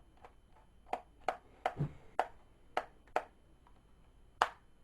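Small sharp clicks and taps from a small Phillips screwdriver and screws being worked out of a laptop's memory cover, about seven clicks at uneven spacing, the loudest near the end.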